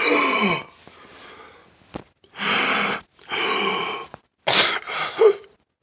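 A man gasping and sobbing in exaggerated distress: four loud, breathy bursts, the first with a short falling cry.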